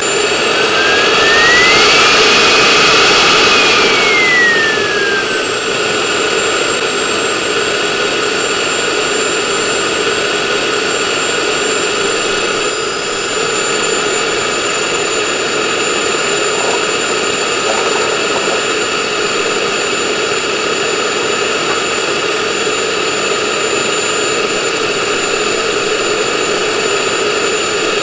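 Small JetCat model jet turbine running at idle with a steady high whine. About a second in it briefly spools up, the whine rising in pitch, then falls back to idle by about five seconds.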